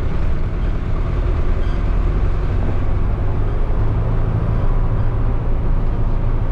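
Engine of a converted micro-bus motorhome running steadily, a constant low rumble with road noise, as when the vehicle is driving.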